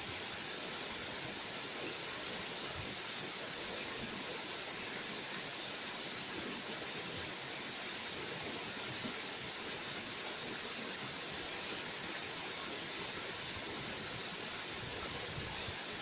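Waterfall spilling down a rock face: a steady, even rush of falling water.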